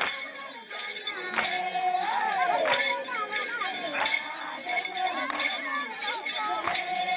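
Music with a regular beat about every 1.3 seconds, jingling percussion and several wavering voices over it.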